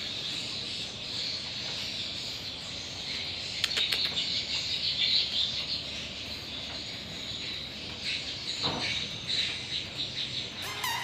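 Insects chirring steadily in a continuous high chorus, with a few faint clicks and knocks near the middle.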